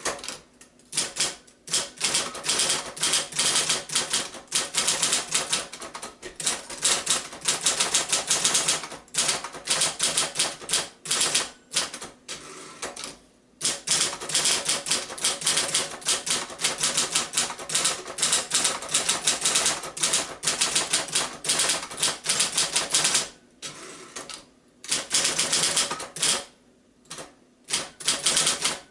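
1968 Royal Apollo electric typewriter typing in fast runs of key strikes, broken by a few short pauses.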